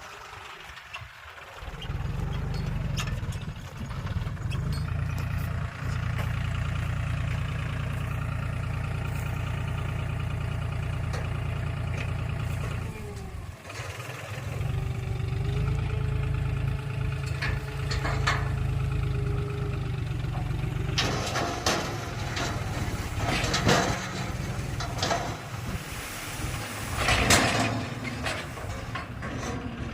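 Heavy diesel engine running steadily, coming up abruptly about two seconds in and dipping briefly about halfway. Through the last third, a run of sharp metallic clanks and knocks.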